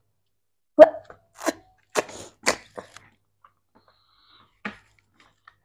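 Plastic toy building blocks clicking and tapping as they are pressed together and set down on a table: about six short, sharp clicks in the first three seconds, the first the loudest, and one more near the end.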